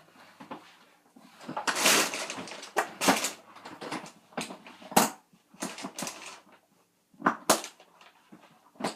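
Irregular knocks, clicks and rustling of things being handled and moved about, with a longer rustle about two seconds in.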